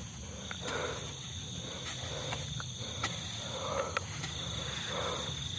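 Spade scooping and tipping loose soil in soft, repeated scrapes about once a second, with a few light clicks of metal on earth. Crickets trill steadily and high behind it.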